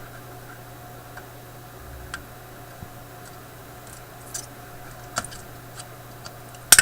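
Scattered light clicks and clinks of a small hand tool working at an old wire in a vintage tube radio chassis while the wire is tugged and will not come free, the sharpest click near the end. A steady low hum runs underneath.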